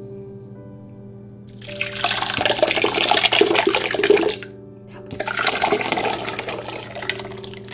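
Water pouring and splashing in two rushes, the first about three seconds long and the second about two, over soft background music.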